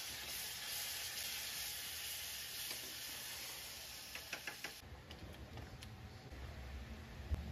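Hot butter-and-flour roux for gravy sizzling in a stainless steel pan as liquid is stirred into it, the hiss slowly fading, with a few sharp taps and scrapes of the spatula against the pan about four seconds in. The sizzle cuts off abruptly about five seconds in, leaving a low rumble and faint scraping as the thin gravy is stirred.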